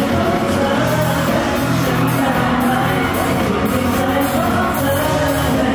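Live pop music with a steady beat and singing, with crowd noise from the audience.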